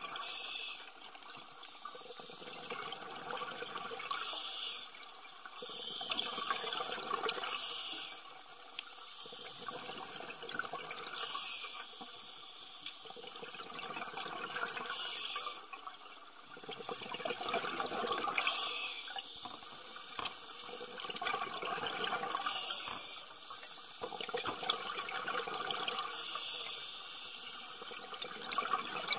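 Scuba regulator breathing underwater: a short hissing inhale every few seconds, each followed by a longer burbling rush of exhaled bubbles.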